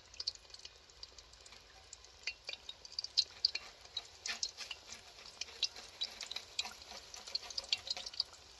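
Cheburek pastries deep-frying in a pot of hot oil: a steady sizzle with many irregular sharp crackles and pops.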